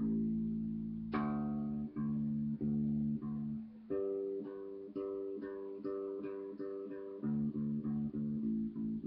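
Ibanez BTB five-string electric bass played through a small Mackie SRM150 powered monitor: a run of plucked notes, low sustained notes giving way to a quicker passage of higher notes in the middle. The strings are dead, about three years old.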